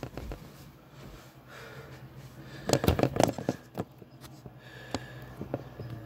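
Knocks and rubbing on a phone's microphone as it is picked up and handled, in a dense cluster about three seconds in, then a few single clicks; a low steady hum underneath.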